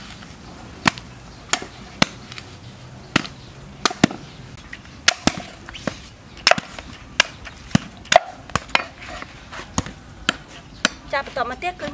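Heavy cleaver chopping into the husk of a green coconut on a wooden stump, cutting its top open: sharp, irregular strikes about one or two a second.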